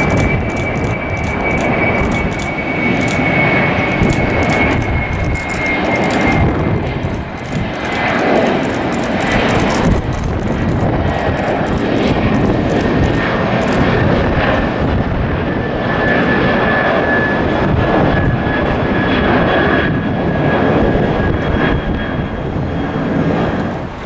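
China Airlines Airbus A330-300 twin-engine jet airliner climbing out after takeoff, its engines running loud and steady at takeoff power. A high engine whine falls slowly in pitch across the pass, with sharp crackles in the jet noise during the first half.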